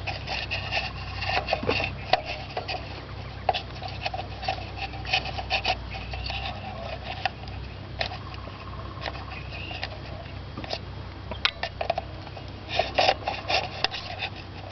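Hand-tool work on an engine's distributor: scattered scrapes, rubs and light clicks of metal tools, over a faint steady low hum.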